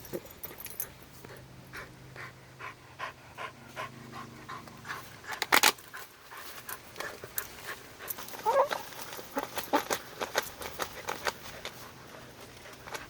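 A fox making a run of short, rapid breathy and scuffling noises while after a chipmunk. There is one loud sharp burst about five and a half seconds in and a brief whining call about eight and a half seconds in.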